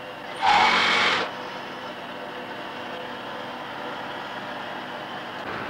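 Sewing machines running in a small garment workshop: a steady mechanical whirr and clatter, with a loud hiss about half a second in that lasts nearly a second.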